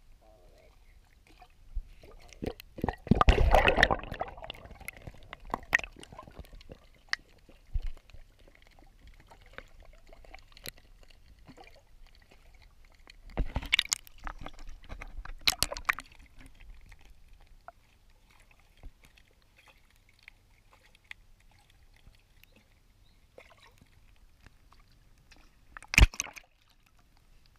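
Pond water sloshing and splashing around a camera held at and just below the surface, with scattered sharp clicks and knocks. Louder splashing about three seconds in and again around fourteen seconds, and a single sharp knock near the end.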